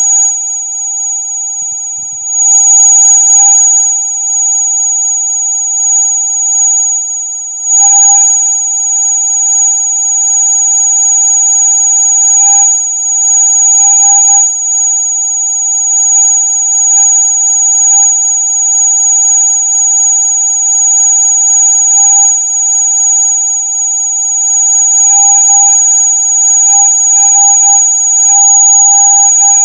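Electronic rat-repellent tone: several steady pitches sounding together, a loud piercing high whine over a lower steady tone, held without a break and wavering only slightly in level.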